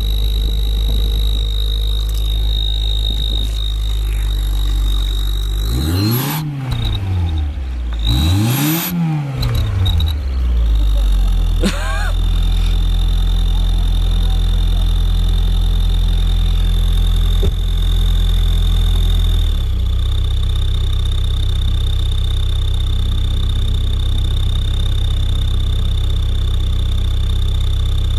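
1993 Honda Accord LX four-cylinder engine idling with a turbo whistle clamped on its tailpipe, a steady high whistle riding over the idle. The engine is revved twice, about six and eight seconds in, its pitch rising and falling each time, then settles back to idle with the whistle.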